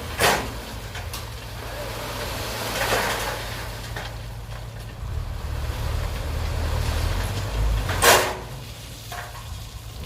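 Excavator's diesel engine running steadily under a low hum, with scattered metallic knocks and scrapes from the working machine; the loudest, a sharp knock, comes about eight seconds in.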